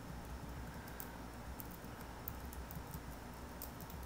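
Faint typing on a computer keyboard: light key clicks in irregular runs over a low steady hum.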